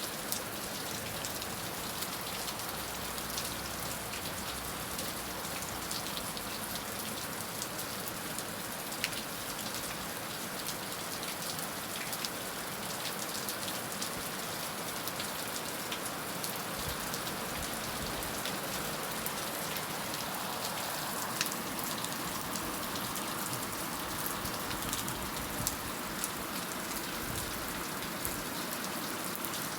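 Heavy rain falling steadily, a dense even hiss with many sharp drop ticks on a hard surface.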